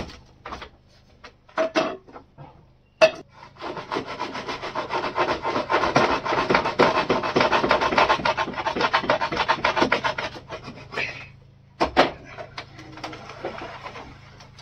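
A blade sawing back and forth through hard, smoke-dried pork hide: a rapid run of rasping strokes lasting about seven seconds. There is a sharp knock just before the sawing starts and another about twelve seconds in.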